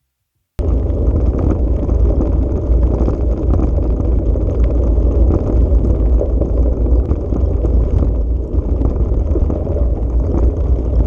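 Vehicle driving off-road: a loud, steady low rumble of engine, running gear and wind buffeting the microphone, starting abruptly about half a second in.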